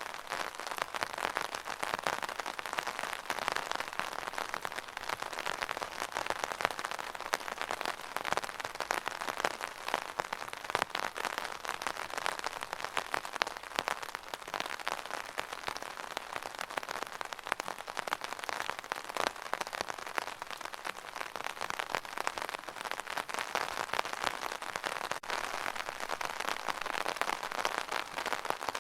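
Rain drumming steadily on an umbrella canopy: a dense, even patter of drops.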